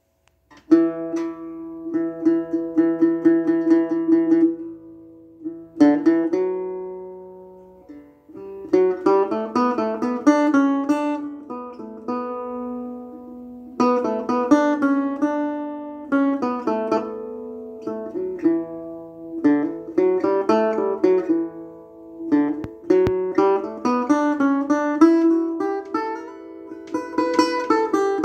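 Solo acoustic guitar playing an original instrumental tune in E dorian, in standard tuning. It comes in under a second in with quickly repeated picked notes, then plays phrases of picked notes separated by short pauses where the strings ring down.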